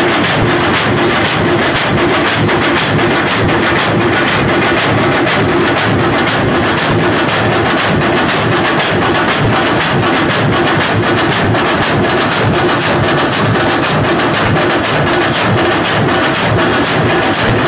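An ensemble of drummers beating large barrel drums and round frame drums with sticks, a loud, dense, fast rhythm that never lets up.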